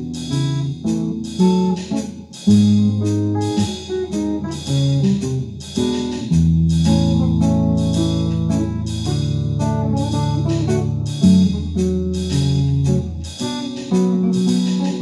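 Archtop hollow-body electric guitar playing a ragtime tune chord-melody style, with quick plucked notes over long held bass notes.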